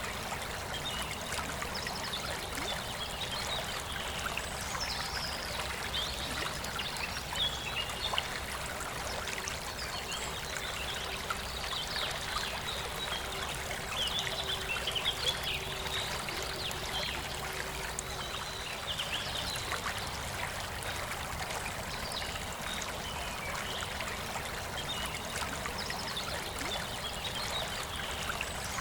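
Forest river flowing steadily, a continuous rush and trickle of water, with birds chirping and singing over it now and then.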